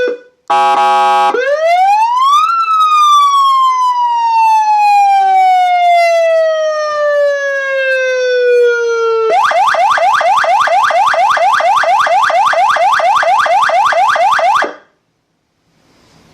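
SA620 200W electronic siren playing through a siren speaker, stepping through its tones: a short buzzy horn blast, then one quick rise and a long slow fall in pitch, then rapid rising sweeps about six a second that cut off suddenly near the end.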